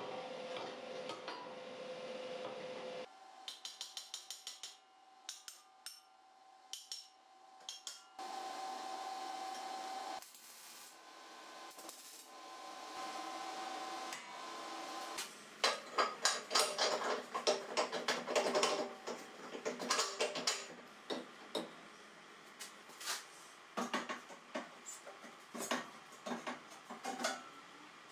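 Steel parts being handled and fitted on a steel frame: a run of sharp metal clanks and taps, dense in the second half, in short cut-together stretches. Some stretches have a steady hum behind them.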